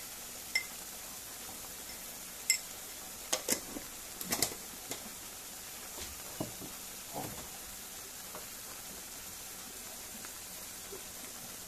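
Thick tomato and onion paste simmering in oil in a kadai: a steady low hiss with scattered pops and spits as bubbles burst in the paste, several close together about four seconds in.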